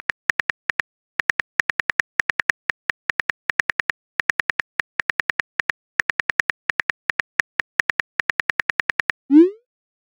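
Simulated phone-keyboard typing clicks, about eight a second in runs with short pauses, then a single rising whoosh about nine seconds in as the text message is sent.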